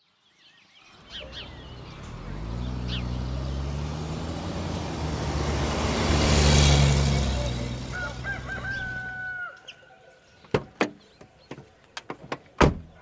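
A low, pitched drone swells over several seconds and fades away about nine and a half seconds in. A rooster crows as the drone dies away, and a run of short sharp clicks and clucks follows near the end, with faint bird chirps early on.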